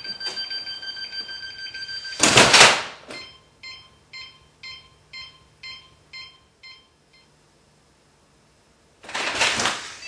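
Honeywell burglar alarm keypad sounding a steady exit tone, then the front door closing with a bang about two seconds in, followed by the keypad beeping about twice a second for some four seconds as the exit delay counts down and the alarm sets. Near the end the front door is opened again.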